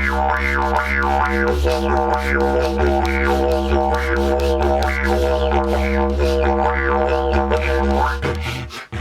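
Didgeridoo played as a steady low drone, its tone swelling and falling in a rhythmic pattern about twice a second. It drops out briefly near the end and starts again.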